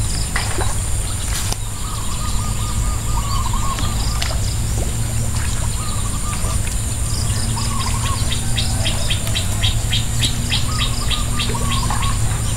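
Birds calling again and again with short wavering calls, and a fast run of high chirps about two-thirds of the way through. Under them run a steady high drone and a steady low hum.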